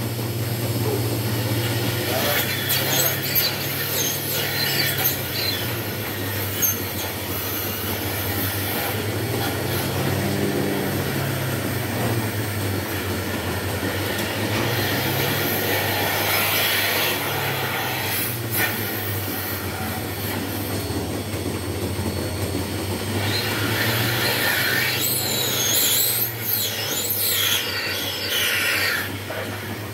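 Milking shed machinery running: the milking plant's steady low hum under rubbing, metallic squeals and clatter. The squealing and clatter grow busier near the end.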